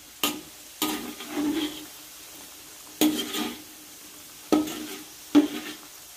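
Metal spatula scraping and knocking against the pan several times as frying pieces are turned in hot oil, over the steady sizzle of deep-frying.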